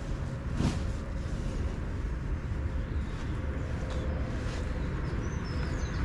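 Steady rumble of road traffic passing close by, with a brief rustle about a second in and birds chirping near the end.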